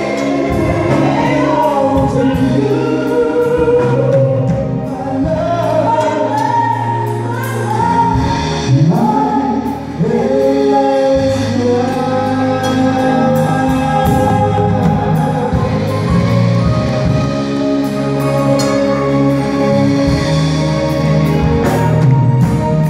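A man and a woman singing a slow duet into microphones, with a live band of drums, bass guitar, electric guitar and keyboard, heard through the hall's PA. The voices hold long, wavering notes.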